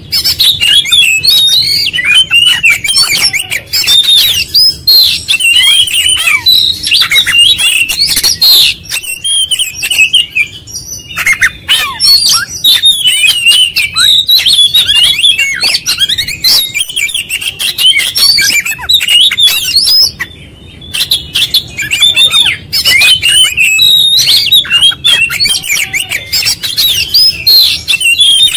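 Oriental magpie-robin (kacer) singing fast and nearly without pause: a dense run of varied whistles, chirps and harsher notes, broken by two short gaps about a third and two thirds of the way through. It is delivering its full song repertoire of learned notes.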